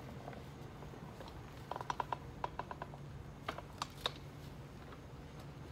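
Wheelbarrow load of compost being tipped out into a wooden raised bed, heard as clusters of light clicks and taps about two and three and a half seconds in, over a steady low hum.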